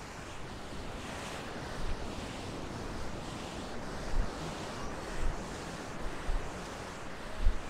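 Surf washing steadily on a sandy beach, with wind buffeting the microphone in several short low gusts, the strongest near the end.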